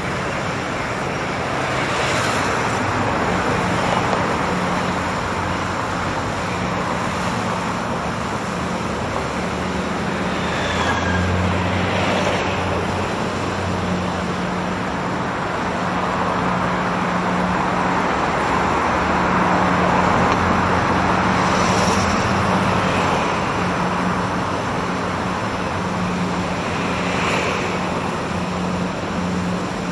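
A river barge's engine running past with a steady low hum, over a continuous rush of churned water from its propeller wash.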